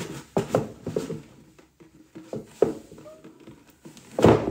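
A hot, wet grain bag of mashed malt being wrung and squeezed by gloved hands over a plastic bucket: irregular wet squelches and splashes of wort, with a louder thump near the end.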